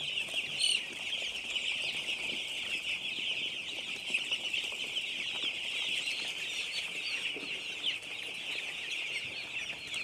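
A large flock of week-old chicks peeping continuously: a dense, high chorus of many overlapping cheeps.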